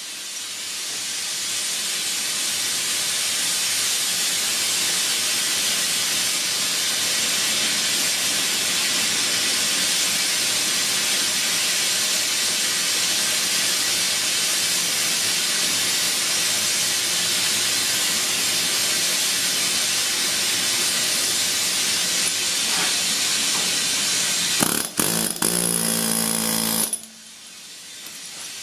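Pneumatic air hammer running continuously: a loud, steady hissing rattle. There are a few knocks shortly before it stops near the end.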